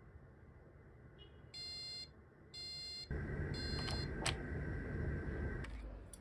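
Electronic beeper of a 3D-printed countdown timer beeping twice, about a second apart, as the countdown runs out. It is followed by a louder steady noise with a high tone and a low hum lasting about two and a half seconds, with a sharp click partway through.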